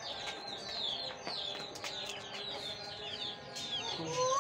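Small birds chirping, many short high chirps in quick succession. Near the end comes a brief rising call.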